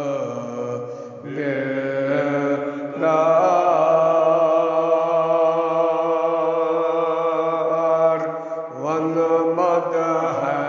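An elderly man's solo voice chanting a Kashmiri marsiya, a mourning elegy, with one long held note for about five seconds in the middle of the phrase.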